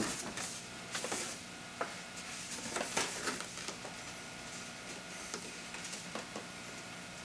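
Paper rustling and crinkling as a folded sheet is opened and handled, with a handful of short, sharp crackles (the strongest about a second in and around the three-second mark), over a faint steady hum.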